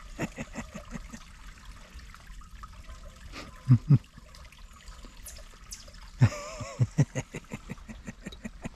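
Water trickling through a beaver dam, with dull knocks: two loud ones close together about four seconds in and a few more a couple of seconds later.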